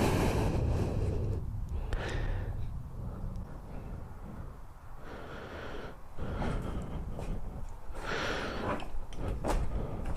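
A man breathing audibly, with sighing exhalations, several times.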